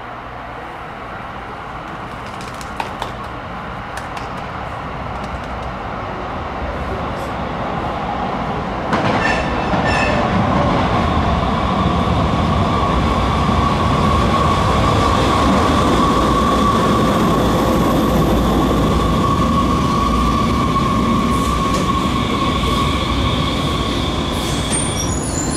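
A one-car Muni Metro light rail train running through an underground station. Its noise grows louder over about nine seconds, jumps up sharply, then holds with a steady high-pitched whine until it cuts off.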